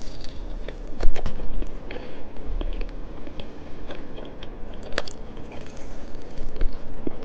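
A person chewing and biting candy, with irregular crackly clicks and crunches, two of them sharper, about a second in and about five seconds in.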